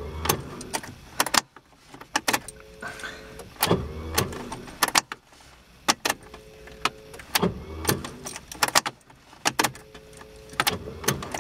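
Starter of a 1991 Ford Escort 1.4 CVH being tried again and again in deep frost: short whirs and sharp clicks repeating about every three and a half seconds, the engine not catching. The owner puts the no-start down to a faulty starter.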